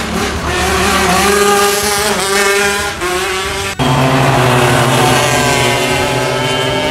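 Racing go-kart engines running at high revs as the karts go round the track, the engine note climbing as they accelerate. About four seconds in, the sound breaks off sharply and a new steady engine note takes over, slowly falling.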